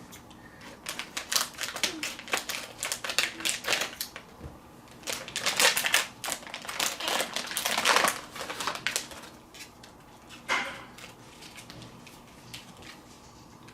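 A blind bag's packaging being handled and opened, crinkling and crackling in bursts of rapid rustles. The rustling goes on for most of the first nine seconds, with one more crackle a little later.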